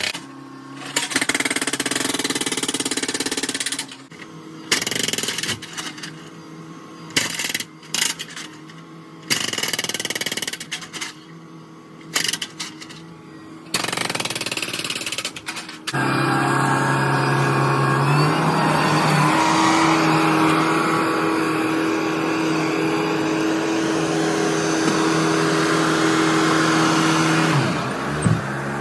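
Bobcat S770 skid-steer loader breaking up a concrete driveway. For the first half there are loud bursts of noise broken by short pauses. From about halfway its diesel engine runs steadily at high revs, its pitch stepping up slightly soon after.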